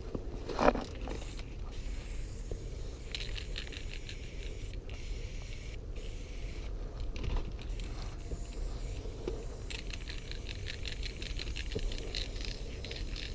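Aerosol spray paint can spraying in short hissing bursts, one about three seconds in and a longer one from about ten seconds. There is a sharp knock about a second in.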